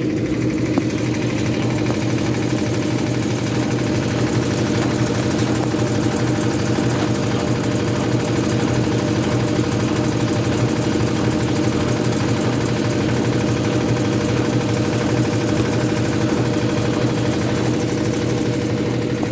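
Washing machine running with a steady mechanical hum made of several held tones. This is the strange noise the owner hears coming from under the motor.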